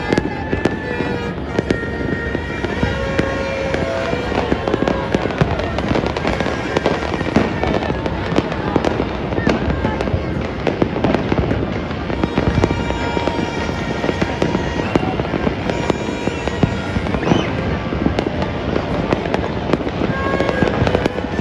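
Many fireworks and firecrackers going off across a city at once: a dense, unbroken stream of bangs, pops and crackles with no pause.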